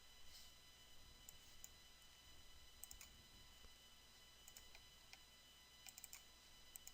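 Near silence with faint, scattered computer mouse clicks, about a dozen spread irregularly.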